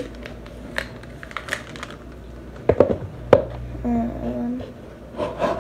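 Plastic vitamin bottles being handled on a kitchen counter: scattered small clicks and taps as a cap is twisted and bottles are picked up and set down, with a louder clatter a little before three seconds in and a sharp knock just after.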